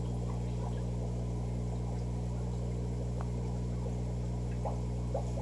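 Steady mains hum of aquarium pumps, filters and power heads running, with a faint hiss of moving water above it.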